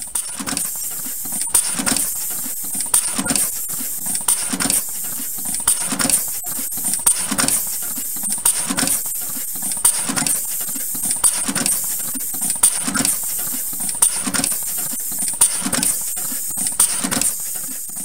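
Automatic wire crimping machine cycling. The crimp applicator press strikes in an even rhythm, a thump with clicks about every 0.7 seconds, over a steady high hiss.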